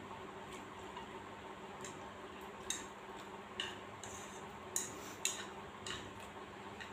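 Wooden chopsticks clicking against a ceramic bowl while noodles are eaten: about five light clicks in the second half, over a steady low hum.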